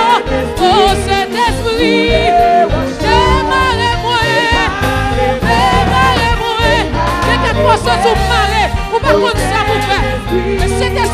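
A woman singing a gospel song into a microphone with strong vibrato, over instrumental accompaniment with a steady bass.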